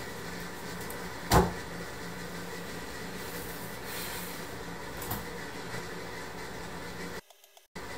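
A steady low hum over a soft noise bed, broken by one sharp knock about a second and a half in and a fainter knock around five seconds. The sound cuts out to silence for about half a second near the end.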